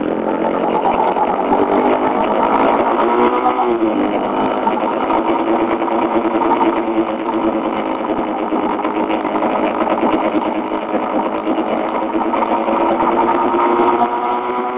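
Motorcycle engine running at road speed, its pitch climbing slowly, dropping sharply about four seconds in, then climbing steadily again.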